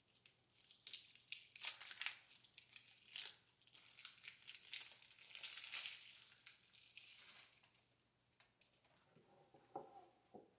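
Cellophane shrink wrap on a deck of playing cards being peeled and torn off by hand after its tear strip broke: dense crackling and crinkling for about seven seconds, then a few light clicks and soft knocks near the end.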